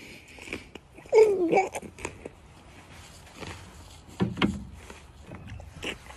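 A man chewing a mouthful of burger, with wet mouth clicks. About a second in comes a short voiced sound falling in pitch, and a short low sound about four seconds in.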